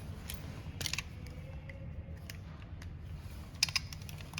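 Short clusters of clicks and rattles of something being handled, about a second in and again near the end, over a low steady hum.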